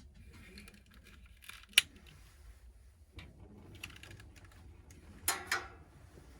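Sharp clicks while the pilot of an old gas furnace is being lit: one loud click about two seconds in, a few softer ones, and a close pair near the end.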